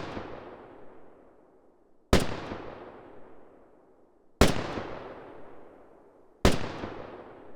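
Cinematic gunshot sound effects: three single shots about two seconds apart, each a sharp crack followed by a long echoing tail that dies away, with the fading tail of an earlier shot at the start.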